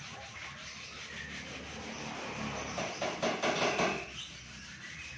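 Hand sanding of body filler on a car's rear bumper: sandpaper on a block rubbed back and forth over the filled surface, the strokes quicker and louder from about three seconds in.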